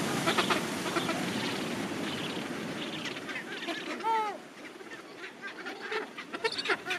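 Gentoo penguin colony calling: many overlapping calls from the crowd of birds, with one clear downward-sliding call about four seconds in, after which the chorus thins to scattered short calls.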